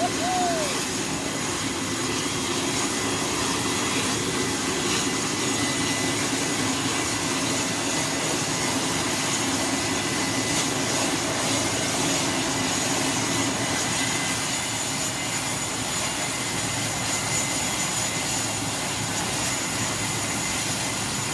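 Concorde's Olympus 593 turbojet running on a ground test stand: a steady rushing jet noise with a thin high whine over it, holding even throughout.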